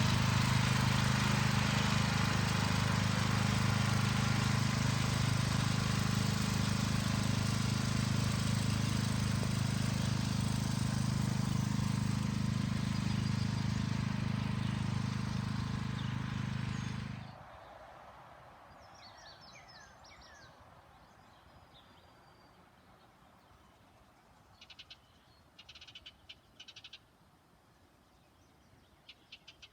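Lawn mower engine running steadily, then shut off and dying away suddenly a little past halfway. After it comes quiet outdoor ambience with scattered short chirps and pulsed trills from small animals.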